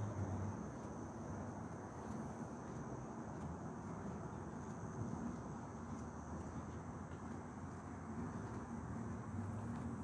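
Insects trilling in the trees, a steady high chorus that swells near the start and again near the end, over a low, even outdoor rumble.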